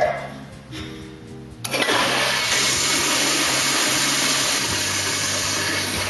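Stainless steel blowout-jet toilet flushing a load of corn kernels. A sharp knock at the start, then about a second and a half later a loud rush of flush water starts suddenly and holds steady until it falls away near the end.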